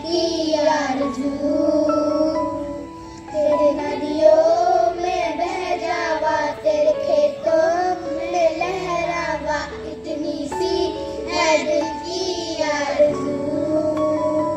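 A group of young boys singing a song together into a microphone, over instrumental backing with steady held notes.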